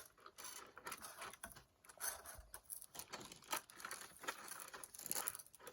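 Faint, irregular rustling, crinkling and light clicks of an action figure's plastic packaging and parts being handled.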